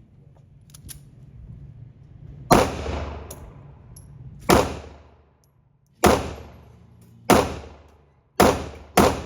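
Six gunshots fired at an uneven pace, the last two close together, each followed by a short echoing ring off the walls of an indoor firing range.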